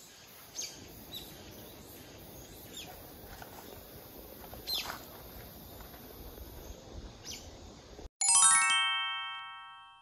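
Outdoor forest ambience with a steady high hiss and a few short bird chirps, then about eight seconds in an abrupt cut to a loud chime sound effect: a quick run of bright bell-like notes that rings out and fades.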